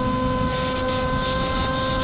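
Electric motor and propeller of an FPV flying wing whining at a steady pitch in flight, with rumbling wind noise on the onboard camera's microphone.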